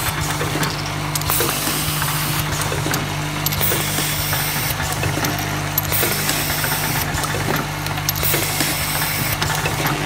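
Small glass vial filling, stoppering and capping machine running: a steady motor hum with constant low tones, broken every second or so by short bursts of hiss and light clicks.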